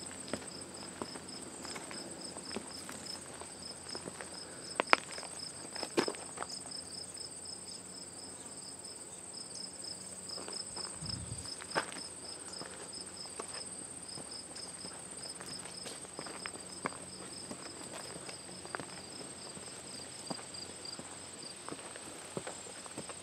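Summer insects calling steadily: a continuous high buzz with a pulsing chirp over it that stops near the end. Footsteps climbing trail steps click and rustle underneath, with a couple of louder knocks a few seconds in.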